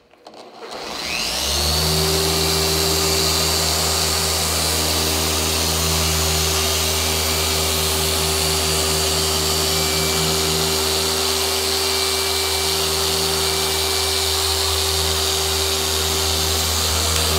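Long-throw dual-action polisher with a foam pad running against a car's painted door panel. It spins up about a second in, then holds a steady hum with a high whine, and winds down at the very end. The run is a test of whether the pad stalls out when held flat.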